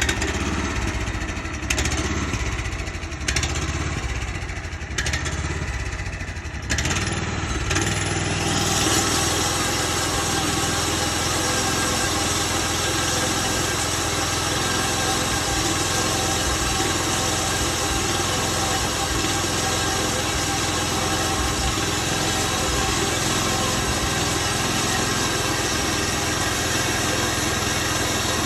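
Gas engine of a portable bandsaw sawmill catching on the first pull and running. It surges unevenly for several seconds, then is throttled up about eight seconds in and runs steadily at speed.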